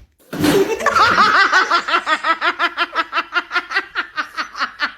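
A rapid, even run of laughter-like 'heh-heh-heh' pulses, about five a second, starting about half a second in and keeping up without a break.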